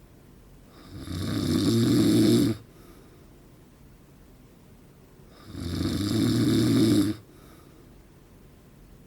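A man in his forties snoring in his sleep: two loud, rough snores about four and a half seconds apart, each building over a second and a half or so and then cutting off sharply, with quiet gaps between.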